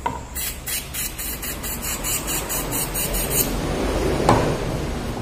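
Aerosol can of carburettor cleaner sprayed in a quick run of short hissing squirts, about four a second for some three seconds, into a hard-starting brush cutter's air intake. A single knock follows about four seconds in.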